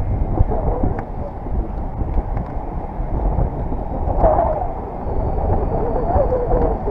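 Strong wind on the microphone: a steady, low rumbling noise.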